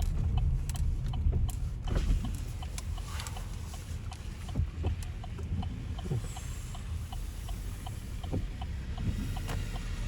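Car moving, heard from inside the cabin: a steady low road and engine rumble, with a light, regular ticking over most of it.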